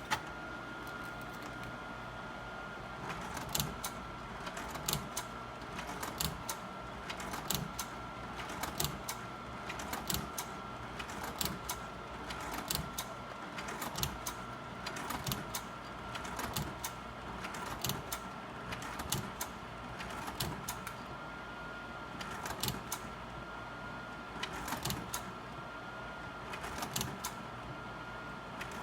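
Sawyer 550R slide projector running, its cooling fan giving a steady hum with a thin whine, while the slide-change mechanism clacks over and over, pushing slides in and out of the round tray roughly every second or so.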